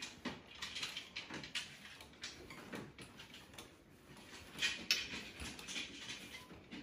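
Irregular light clicks and rattles of a wheelchair rolling over tile floor and through a doorway, with a louder cluster of knocks about five seconds in.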